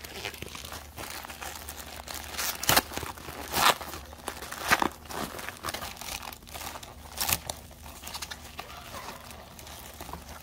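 A plastic mailer bag being torn open and crinkled by hand, continuous rustling with a few sharp, louder rips.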